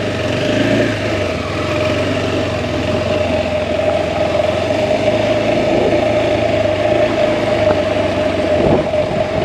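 Single-cylinder motorcycle engine running at a steady speed under way, its note holding even throughout, with wind and road noise mixed in.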